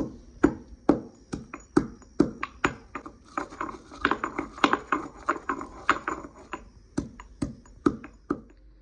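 Stone pestle pounding in a stone mortar, crushing ingredients to a powder: sharp knocks about two a second, quickening to a rapid flurry midway, then slowing and stopping near the end.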